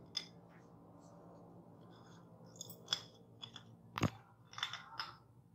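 Brittle pieces of peanut-and-jaggery chikki being handled and set down on a ceramic plate: faint scattered crisp clicks and crackles, with one sharper knock about four seconds in.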